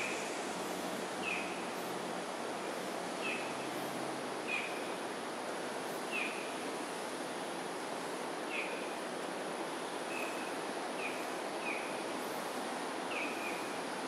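Short, high chirps falling in pitch, repeated about once every second or so, from a calling animal, over a steady outdoor background hiss.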